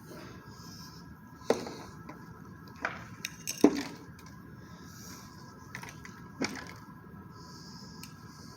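Several sharp knocks and clicks at uneven intervals, the loudest about three and a half seconds in, over a faint steady hum.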